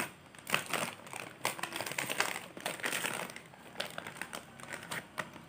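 Plastic snack-chip bag crinkling in irregular crackles as it is held and handled and a child's hand reaches in for a piece.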